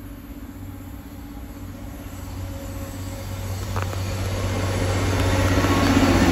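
A train approaching, its running noise and a steady low hum growing steadily louder, with a single light click a little past halfway.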